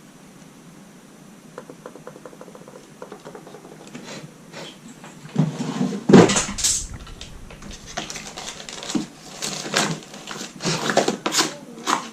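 Screwdriver and tools clicking, knocking and clattering against a laptop's case while working at seized screws: a run of faint quick clicks, then a series of louder irregular knocks and rattles.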